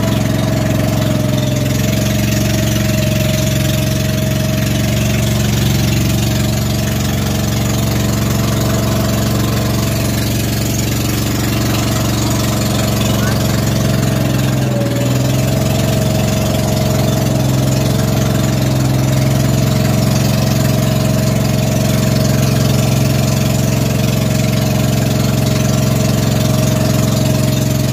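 Outrigger boat's engine running steadily under way, a low drone that dips briefly about halfway through, over a hiss of water and wind.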